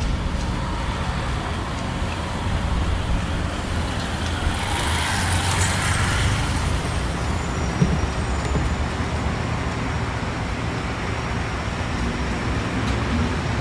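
Steady low rumble of road traffic, with a vehicle passing by about five seconds in.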